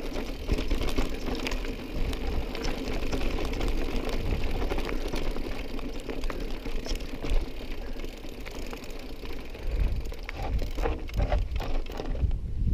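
Mountain bike rolling over a rough gravel track: a steady crunch of tyres with dense small rattles and clicks from the bike, over wind rumbling on the microphone.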